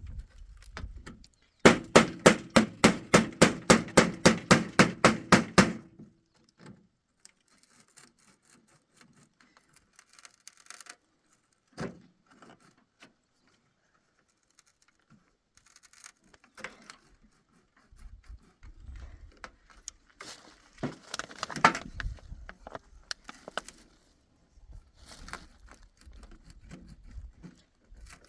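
A hammer striking wood in a fast, even run of about four blows a second for some four seconds, then scattered knocks and handling noises of wood being worked.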